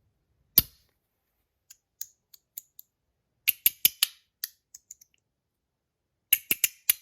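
Magnetic EDC fidget slider clicking as it is slid, its magnets snapping the halves into place, with fewer balls loaded. One loud click about half a second in, a few faint clicks, then quick runs of sharp clicks around the middle and again near the end.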